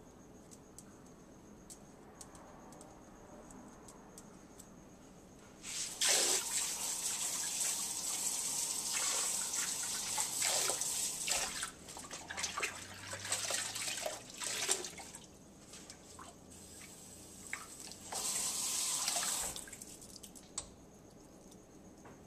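Kitchen tap running into a sink, the stream splashing unevenly as something is rinsed under it. It starts about six seconds in, stops around fifteen seconds, and runs again briefly near the end.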